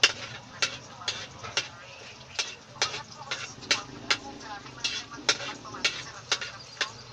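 Metal spatula clanking and scraping against a steel wok while stirring, with sharp, uneven knocks about twice a second.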